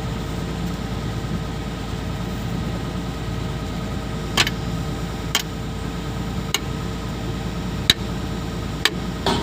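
Engine idling steadily while sharp knocks ring out, six of them spaced roughly a second apart from about four seconds in.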